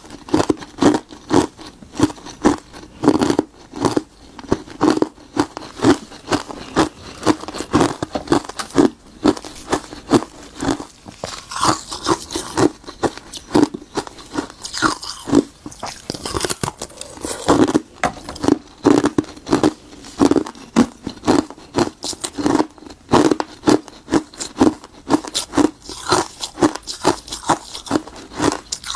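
Close-miked crunching of frozen bitter-buckwheat tea ice: teeth bite down on it and it cracks apart, then is chewed. Sharp, crisp crunches come steadily, about two a second.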